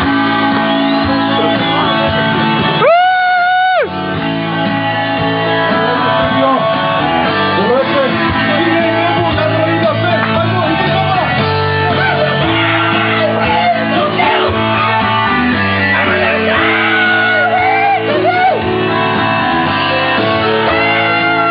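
Loud rock music driven by electric guitar, played without a break. About three seconds in, one high note is held alone for about a second before the full band comes back.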